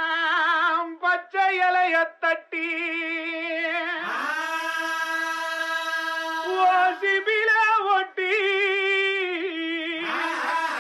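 A woman's voice singing a slow melody without instruments, in long held notes with a wide, even vibrato, broken into several phrases by short pauses.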